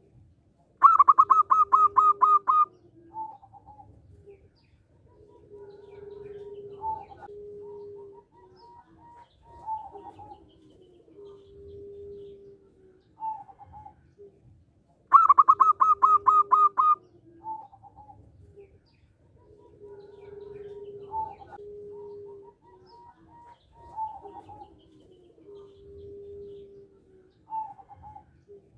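Zebra dove (perkutut) singing: twice, a loud rapid run of about nine clipped, evenly spaced notes.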